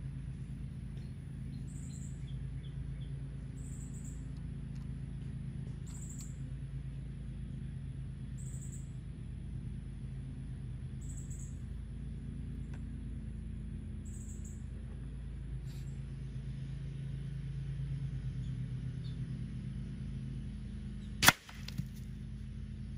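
Single shot from an AEA Challenger .357 bullpup PCP air rifle fitted with a regulator and firing a slug: one sharp crack near the end, followed by a fainter knock about half a second later. A steady low hum sits beneath it.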